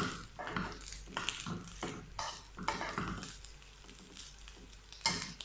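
A metal spoon scraping and clicking against a frying pan as fried rice is stirred, in irregular strokes with the loudest knock about five seconds in, over a light sizzle of frying.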